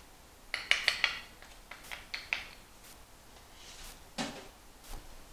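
A metal spoon clinking against a stainless steel mixing bowl: a few light, ringing taps in two quick clusters in the first two and a half seconds, then a duller knock about four seconds in.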